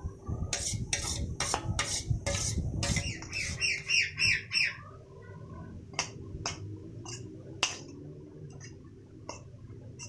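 A utensil knocks against a dish in a steady rhythm, about two strikes a second, while the yogurt mixture is stirred. Then a bird gives a rapid series of chirps, followed by a few scattered clinks.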